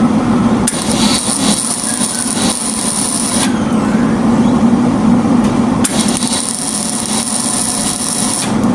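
Electric arc welding on steel: a steady, loud crackle and sizzle of the arc, its high hiss thinning for a couple of seconds in the middle before coming back.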